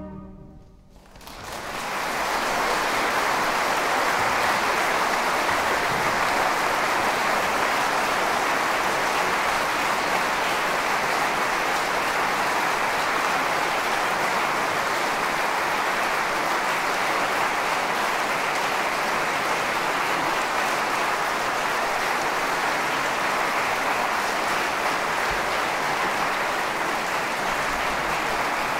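An orchestra's last chord dies away within the first second, then a large audience starts applauding and keeps up steady, dense clapping.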